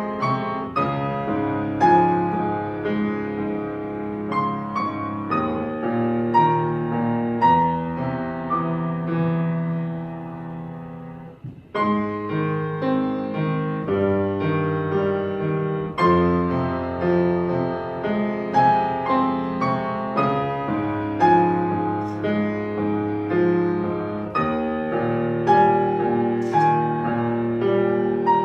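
Solo piano playing a gentle melodic piece with chords. The playing thins out and nearly stops about eleven seconds in, then resumes with a firmly struck chord.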